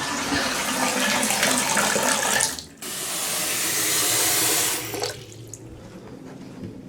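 Hot-water faucet running at full flow, a steady rush of water, with a short break near three seconds in; it stops about five seconds in. Pressure is back on the hot line after the water heater has been refilled.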